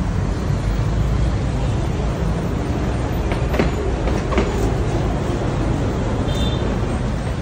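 Steady low rumble of road traffic, with a couple of faint taps about halfway through.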